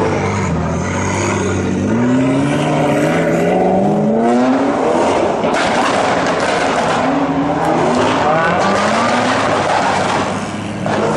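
Exotic sports car engines, including a Lamborghini Huracán and a McLaren 720S, revving and accelerating away one after another. The engine pitch climbs repeatedly as each car pulls off and runs up through the revs.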